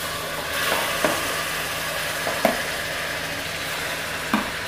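Grated bottle gourd hitting hot ghee in a steel kadhai and frying with a steady sizzle that starts as it goes in. Three short knocks of the spoon against the pan or plate, about a second, two and a half seconds and four seconds in.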